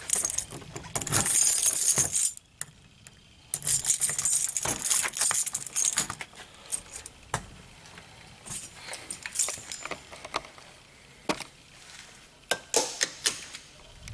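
A bunch of keys jangling in two spells as a deadbolt on a steel door is unlocked, followed by scattered clicks and knocks of walking and handling.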